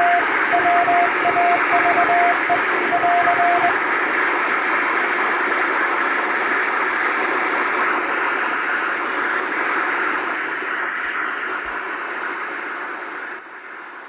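Morse code sent by hand on a straight telegraph key: a single steady tone switching on and off in dots and dashes over a steady radio hiss. The keying stops about four seconds in; the hiss runs on alone and fades out near the end.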